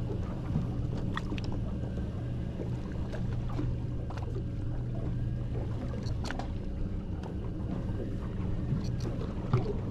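Boat engine idling with a steady low hum, with a few faint clicks scattered through it.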